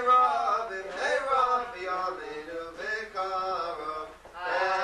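Male voices chanting a Passover seder song from the Haggadah, held sung notes with a short break about four seconds in.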